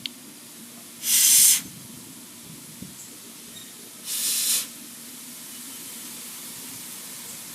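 Aerosol spray can sprayed in two short bursts of hiss, each about half a second long and about three seconds apart.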